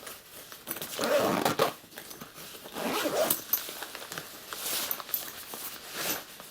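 Zipper on a camera sling backpack being pulled in a few rasping strokes, the strongest about one and three seconds in.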